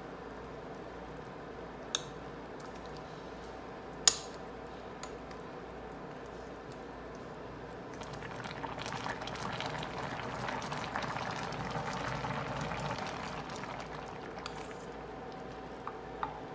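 Pork, jackfruit and pigeon-pea soup simmering in a stainless steel pot over a steady low hum. A metal spoon clinks sharply against the pot twice in the first few seconds, and from about eight to thirteen seconds in it stirs through the broth with a louder wet sloshing.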